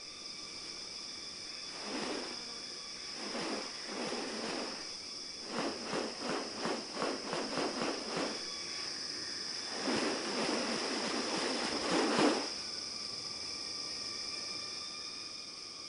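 Rainforest insects droning steadily at a high pitch, overlaid by bursts of rapid rattling pulses, a longer run of them in the middle, and a denser rushing burst a little after ten seconds in.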